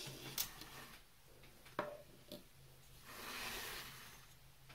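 Small handling sounds as paint tubes and palette pans are worked at a table: three light clicks or taps, the second one the sharpest, then a soft rustling hiss about three seconds in that lasts about a second.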